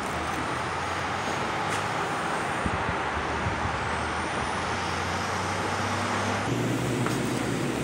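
A steady mechanical drone with a low hum under it. About six and a half seconds in, the hum shifts to a different, slightly higher set of steady tones.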